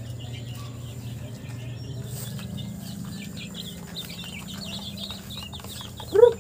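Chickens and young chicks calling: scattered short high peeps that grow busier after about three seconds, and one louder short cluck near the end, over a steady low hum.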